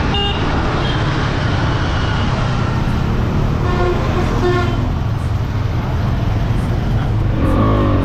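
Motorcycle engine and road noise during a ride, steady throughout. A short horn sounds about halfway through.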